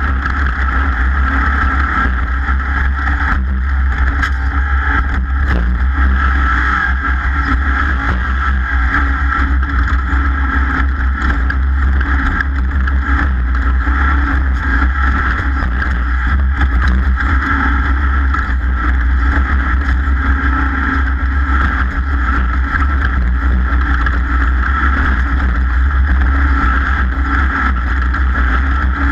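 Racing powerboat running at speed: a loud, steady engine drone over a heavy low rumble, with no break.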